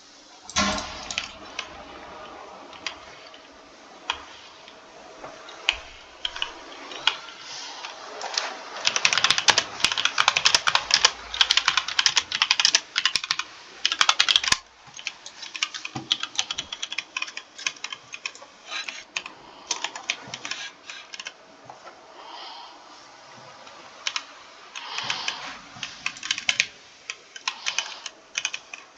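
Typing on a computer keyboard. The keystrokes are sparse and irregular at first, turn into a fast run of typing from about a third of the way in until about halfway, slow again, and pick up into another quick flurry near the end.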